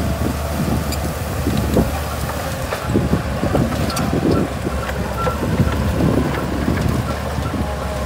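Shantui DH17C2 bulldozer's diesel engine running steadily under load, with many irregular clanks and crackles as it pushes soil and brush.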